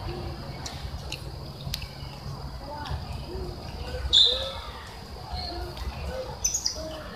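Macaques giving short, soft chirping coos, scattered through. About four seconds in, a baby macaque lets out a loud, high squeal, and there is another high squeak near the end.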